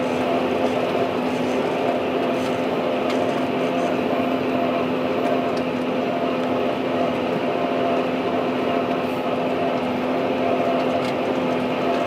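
Fendt 936 Vario tractor's six-cylinder diesel engine running steadily under load while pulling an eight-furrow reversible plough, a constant hum that holds one pitch.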